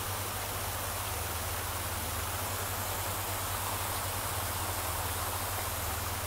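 Steady rushing of falling water from a waterfall, even and unbroken, with a low hum underneath.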